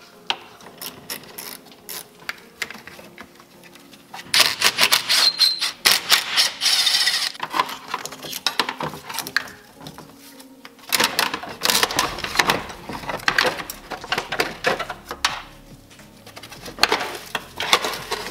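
Ratchet wrench clicking in quick runs, three times, while undoing 10 mm nuts on the battery terminals and hold-down J-hooks, along with light metal clinks of the loosened hardware.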